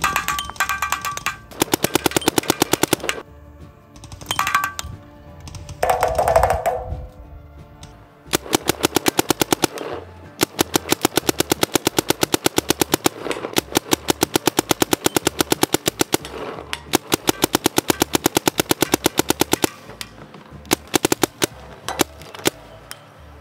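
Planet Eclipse LV2 paintball marker firing rapid strings of shots, several runs of many shots a second broken by short pauses, the longest lasting about six seconds in the middle.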